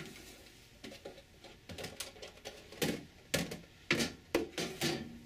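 A plastic wash basin and other items knocking and clattering as they are taken out of a wooden bedside cabinet: a string of sharp knocks that begins about a second and a half in and comes thicker and louder toward the end.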